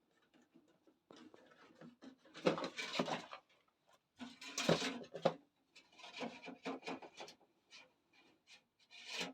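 Side panels being taken off a PC case: irregular spurts of rubbing and scraping, with a few light knocks, as the panels are handled.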